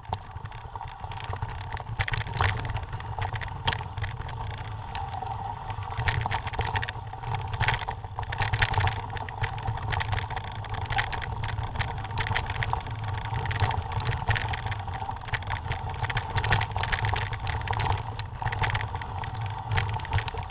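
Mountain bike rolling down a rocky dirt trail, heard from the rider's own camera: tyres crunching over loose stones and the bike rattling, with frequent clicks and knocks over a steady low rumble.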